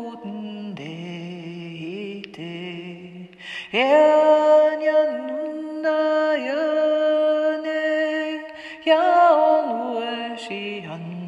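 A woman singing a wordless light-language chant, holding long notes of several seconds and gliding from one pitch to the next.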